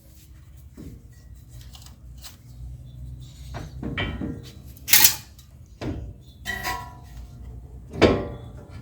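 Metal clanking as a pickup's front steering knuckle is worked loose from the suspension: a few light knocks, then sharp ringing metal strikes, the loudest about five and eight seconds in.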